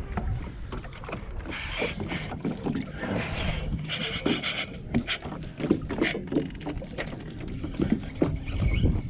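Wind rumbling on the camera microphone aboard a small fishing boat, with scattered sharp clicks and knocks as a baitcasting rod and reel are handled.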